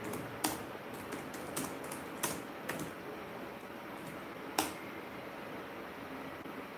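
Sparse, irregular clicks and taps at a computer keyboard, a few sharper than the rest, over a low steady room hiss.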